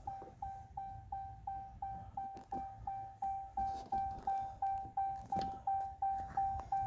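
A 4th-gen Ram pickup's warning chime dinging over and over, about three dings a second, each fading away, as it does with the front door standing open. A few faint clicks of a screwdriver working the door-panel screws.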